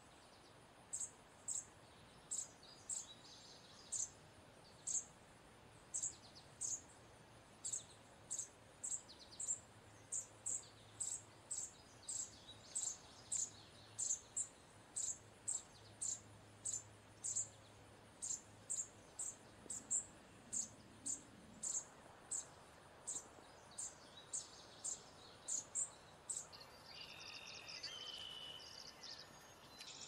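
Chipping sparrow giving a long series of short, sharp, very high chip calls, one to two a second. The chips stop near the end, leaving a faint background rustle.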